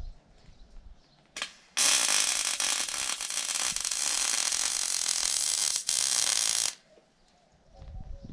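MIG welding arc crackling and hissing on the golf cart's tube chassis: a brief burst about a second in, then one steady bead of about five seconds with a momentary break, cutting off near the end.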